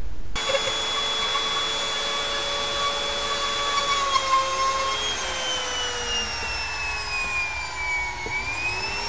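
Handheld electric trim router running with a steady high whine while a round bit cuts a channel into a wooden knife-handle scale. From about four seconds in its pitch sags gradually as the cut loads the motor, then picks up again near the end.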